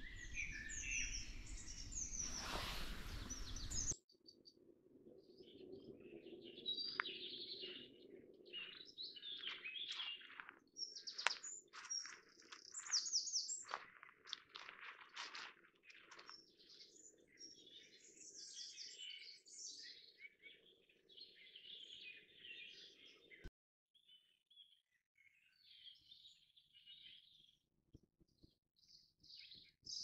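Woodland birdsong: several birds singing and calling in short, varied chirps and whistled phrases, loudest from about ten to fifteen seconds in and thinning out near the end. For the first four seconds a steady hiss lies under the calls and then cuts off abruptly.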